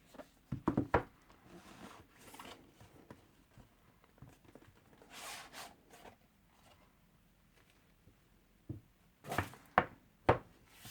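Cardboard product box being handled and opened by hand: a few knocks and thunks, soft rubbing, and a sliding scrape about halfway through, then a quick run of knocks near the end.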